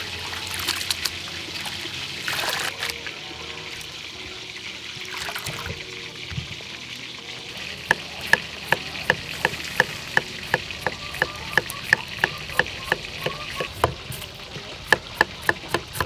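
Hands swishing and squeezing shredded vegetable in water in a metal bowl, the water splashing and trickling. About eight seconds in, this gives way to a julienne peeler shaving a raw beetroot over a wooden board, with sharp scraping clicks about two and a half a second, quickening near the end.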